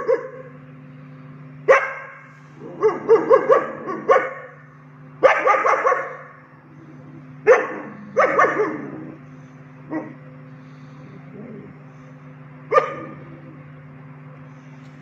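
Three-month-old German Shepherd puppies barking in irregular bouts, some single barks and some quick strings of three or four. The barking stops after about 13 seconds. It is angry, alert guard barking at the people filming from below, whom the newly arrived dogs do not yet recognise.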